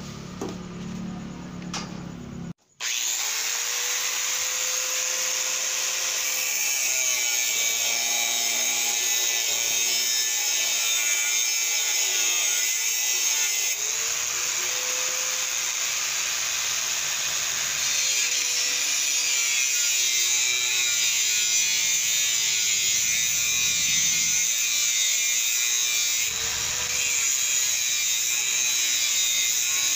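Handheld angle grinder cutting a bar with its disc, a steady, high, hissing whine whose motor pitch wavers as the disc bites. It starts abruptly about two and a half seconds in and runs on, with a brief dip near the end.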